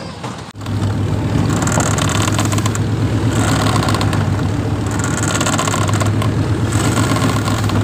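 A ship's engine running steadily with a low hum, under a loud rushing noise of wind and churning sea that swells every couple of seconds. It starts abruptly about half a second in.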